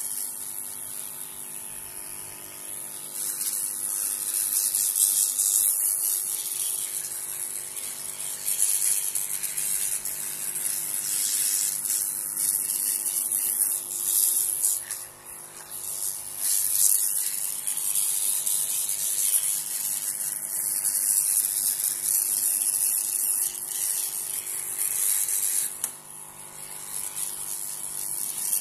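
Hot-air blower at full air, heating the laptop keyboard to drive the moisture out of it. It makes a steady high hiss of rushing air that swells and fades as the nozzle sweeps back and forth over the keys, over a faint low hum.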